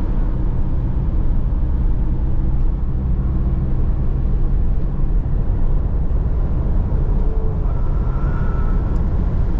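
Car driving at highway speed, heard from inside the cabin: a steady low rumble of engine and tyre noise.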